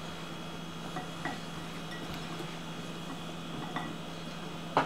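A few faint light clinks of a metal spoon against a glass bowl as breadcrumbs are scooped, with a louder knock near the end, over a steady low hum.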